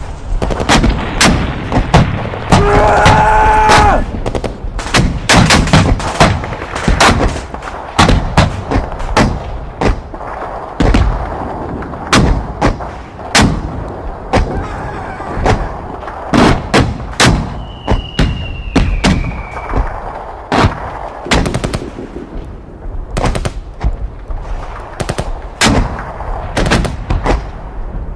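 Mixed World War I battle sound effect of rifle and machine-gun fire: sharp shots going off irregularly throughout, some in quick runs. A high whistle falls slowly in pitch for about two seconds past the middle.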